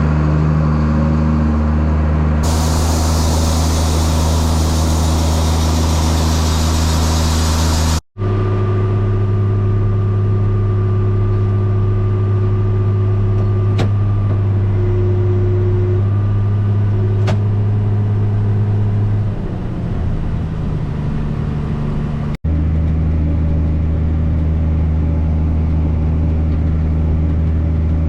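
Farm machinery engine running steadily at a constant speed. The sound cuts off abruptly twice, about eight seconds in and about two-thirds of the way through, with a different engine pitch between the cuts. A loud hiss joins the engine a couple of seconds in and stops at the first cut.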